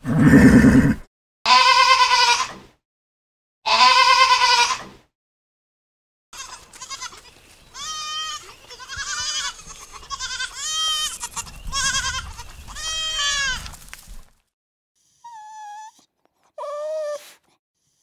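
A series of animal calls: three loud cries in the first five seconds, a run of shorter pitched calls from about six to fourteen seconds, and faint high puppy whimpers near the end.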